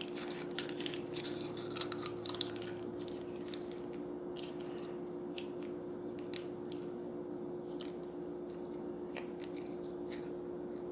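Scattered light crinkles and clicks of small craft material being handled or cut, denser in the first few seconds, over a steady hum.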